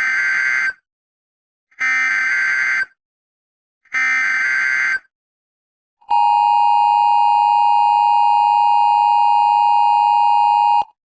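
Emergency Alert System warning tones: three bursts of digital SAME header data, about a second each, followed by the two-tone attention signal, a steady dual tone held for about five seconds that cuts off abruptly near the end.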